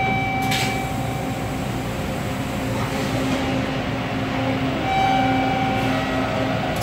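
Toronto subway train running on Line 2, heard from inside the car: a steady rumble with a constant motor whine. Two brief higher squeals come through, one at the start and one about five seconds in.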